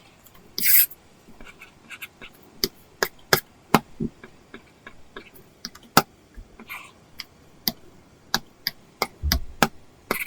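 Apple Pencil tip tapping and scratching on an iPad's paper-textured screen film. There is a short scratchy stroke about half a second in, then a run of sharp, irregular taps, with a dull bump near the end.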